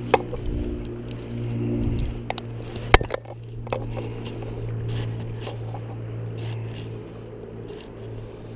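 Fly-casting handling sounds: fly line scraping through the rod guides and over the hand in short scratchy strokes, with a few sharp knocks, the loudest about three seconds in, over a steady low hum.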